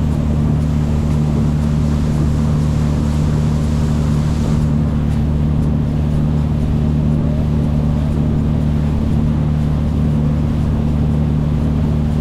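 Boat engine running steadily under way: an even, loud low drone with a hiss of wind and water over it.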